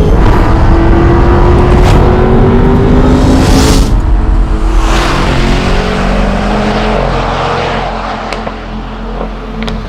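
Aston Martin DBX707's twin-turbo V8 accelerating hard. Its pitch climbs and drops back at a sharp crack with each upshift about every two seconds, then it settles and eases off, with a couple of sharp exhaust cracks near the end.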